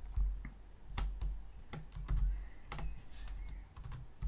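Typing on a computer keyboard: irregular keystrokes, a few clicks at a time, as a line of code is entered.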